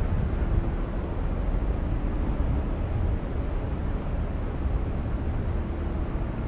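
Wind rumbling on the microphone over steady outdoor background noise, a low, irregularly wavering rumble with no distinct events.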